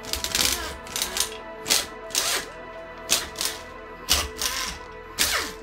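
Cordless impact wrench hammering in about seven short bursts as it works bolts loose on a Subaru EJ251 engine's intake manifold.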